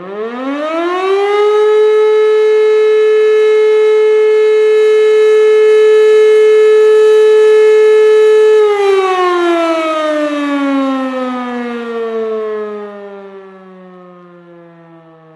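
Motor-driven fire siren winding up to a loud steady tone, holding it for about seven seconds, then slowly winding down in pitch and fading away; it starts winding up again right at the end.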